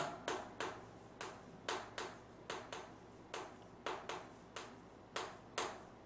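Chalk tapping and scraping on a chalkboard as words are written: a string of short, sharp taps at an uneven pace, about two a second.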